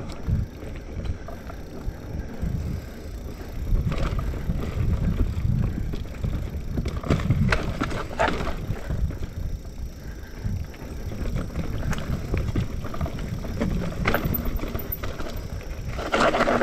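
A mountain bike rolling fast over a dirt forest trail: a constant low tyre-and-wind rumble, with short rattles and knocks as the bike goes over bumps and roots, and a louder clattering burst near the end.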